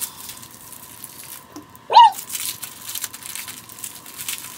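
Small plastic bag crinkling and rustling in the hands as a lens cap is worked out of it, with one short strained vocal noise about two seconds in.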